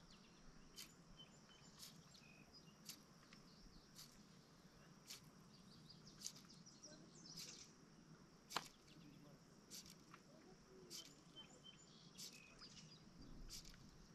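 Near silence: faint outdoor ambience with a short, sharp tick about once a second and faint, high bird chirps in between.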